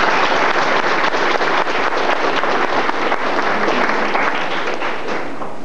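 Audience applauding, many hands clapping at once; the applause dies away near the end.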